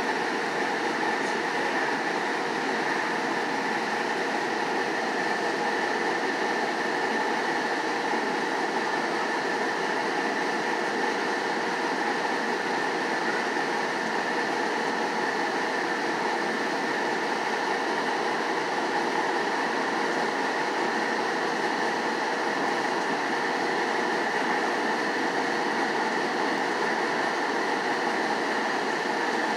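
Steady running noise inside a SunRail commuter rail coach moving at speed: wheels on the track under a constant rush, with a steady hum over it.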